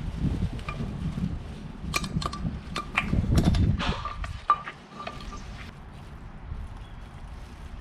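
Metal tools and parts clinking and knocking in a series of sharp strikes, several with a short metallic ring, over a low rumble. The strikes are closely spaced around two to five seconds in, then the sound settles quieter.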